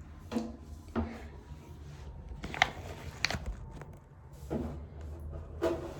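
A few light knocks and clicks of objects being handled, the sharpest two about two and a half and three and a quarter seconds in, over a steady low hum.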